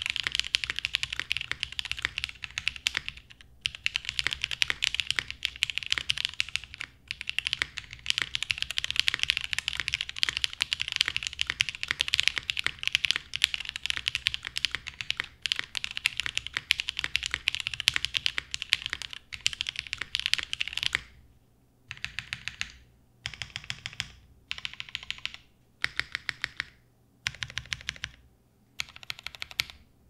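Fast continuous typing on a Monokei x TGR Tomo mechanical keyboard: lubed linear Cherry MX Black switches with Kailh stems in a top-mounted aluminium plate, with GMK keycaps. About 21 seconds in, the steady typing stops and gives way to about seven short, separate runs of presses on the modifier keys, roughly one run a second.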